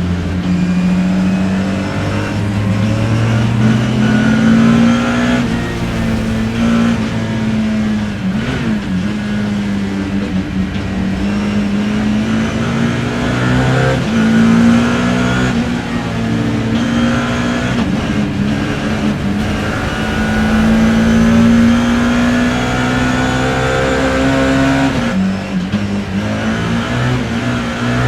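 BMW E30 M3 race car's four-cylinder S14 engine heard from inside the car under hard racing load, its pitch climbing steadily through each gear and dropping sharply at shifts and lifts for corners, several times over.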